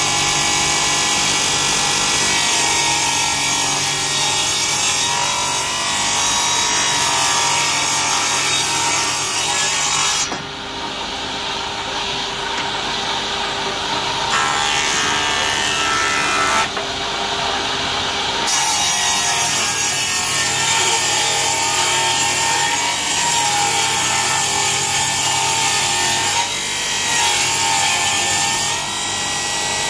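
Old table saw ripping a wooden beam lengthwise, the blade cutting continuously as the timber is fed through. About ten seconds in, the sound thins and drops a little for several seconds, then returns to full cutting.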